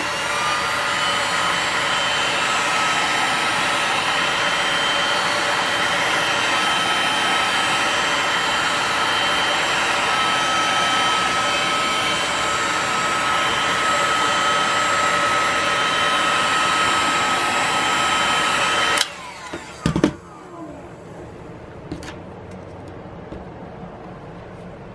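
Electric heat gun running: its fan blows steadily with a steady whine. About three-quarters of the way through it is switched off and the fan winds down, followed by a knock and a few light clicks.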